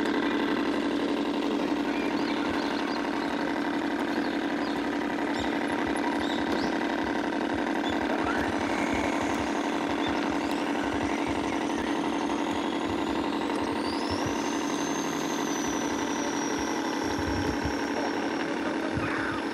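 Radio-controlled model tugboat's motor running with a steady hum. A high whine rises in pitch about two-thirds of the way through and then holds, as the drive speeds up.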